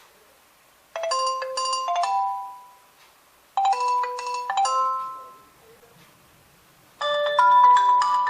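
Built-in alert chime of a Nokia 2.2 phone, a short doorbell-like phrase of a few bright notes, played twice about two and a half seconds apart. A different, fuller ringtone melody starts near the end.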